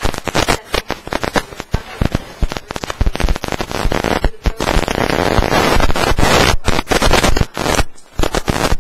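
Rapid, loud crackling and popping on the meeting-room microphone audio, growing denser and hissier from about four and a half to seven and a half seconds in.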